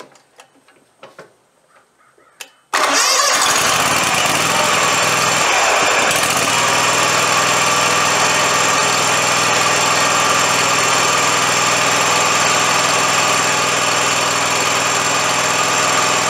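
A few faint clicks, then about three seconds in the Scag Tiger Cub mower's engine starts abruptly and runs steadily. It is started to build oil pressure on a freshly resealed oil drain fitting and check it for drips.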